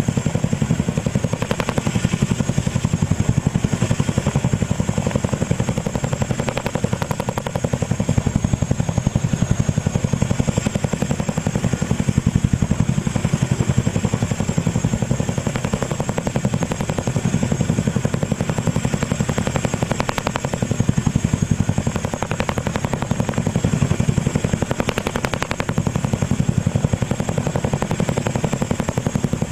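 Boeing CH-47 Chinook hovering low overhead, its tandem rotors beating steadily with a rapid pulse over a constant high whine.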